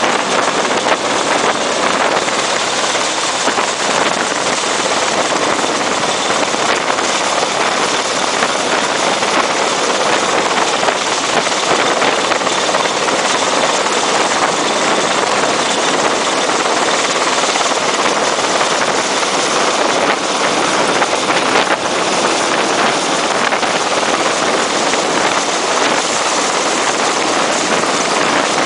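Hovering helicopter: a steady, loud rush of rotor and engine noise, heard from the open cabin door with wind on the microphone.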